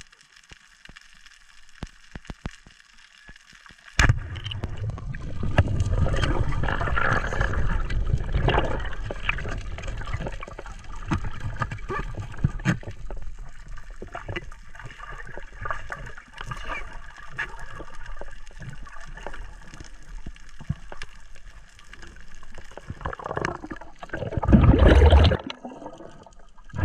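Water churning and gurgling around an underwater camera. About four seconds in, a sharp snap as the speargun fires, then loud turbulent rushing that slowly fades as the speared cubera snapper struggles. Near the end there is another loud surge of churning water.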